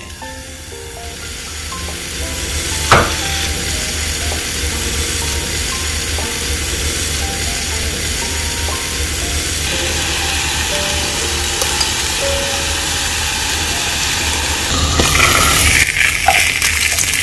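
Sweet pumpkin sizzling and hissing with steam as it is pressed in a hot waffle maker, with one sharp click about three seconds in. The sizzle grows louder near the end, when the lid is open.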